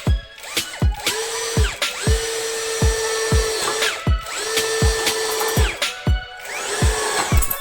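Dagmara cordless drill driving screws into steel C-channel: the motor whirs in four bursts, spinning up and winding down each time. Background music with a steady beat plays throughout.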